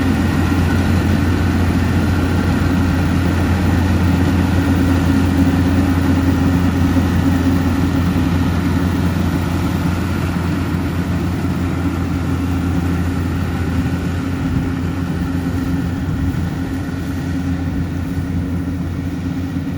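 Yanmar YH700 rice combine harvester running steadily under load, a constant engine and machinery drone that eases off slightly near the end.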